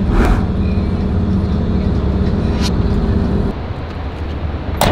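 Steady low rumble of a motor vehicle on the move, engine and road noise, with a few sharp clicks. About three and a half seconds in, the hum cuts off abruptly and a lower rumble remains.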